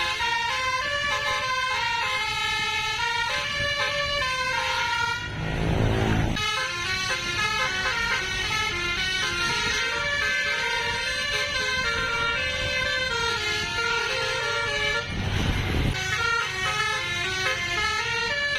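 Basuri multi-tone musical bus horn playing a tune in quick stepped notes. A short rush of noise breaks in twice, about five seconds in and again about fifteen seconds in.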